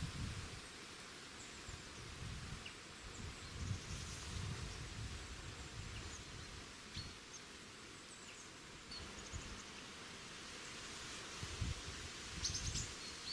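Outdoor ambience: low wind gusts buffeting the microphone, with a few faint, short bird chirps scattered through, a small cluster of them near the end.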